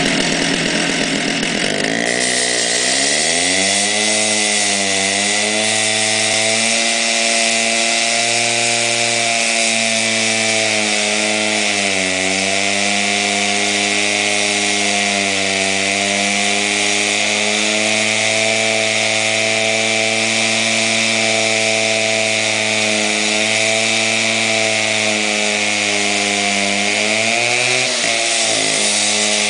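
Engine-driven concrete saw cutting a concrete slab. The engine revs up over the first few seconds, then runs at high speed under a steady grinding hiss from the blade. Its pitch sags briefly a few times as the blade bites into the concrete.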